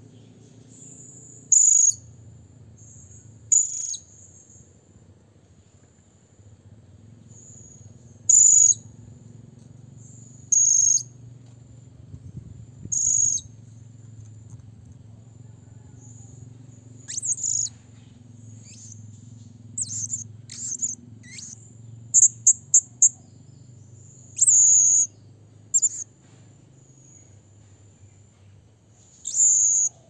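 Blue-crowned hanging parrot (serindit) giving short, sharp, very high-pitched calls at irregular intervals, with a quick run of four near the end: its call to a rival.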